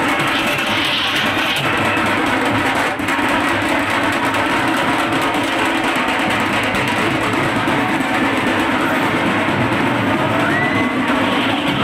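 Loud, continuous festival drumming on large shoulder-slung stick drums in a teenmaar-style band, with crowd noise mixed in. A brief wavering high tone sounds near the end.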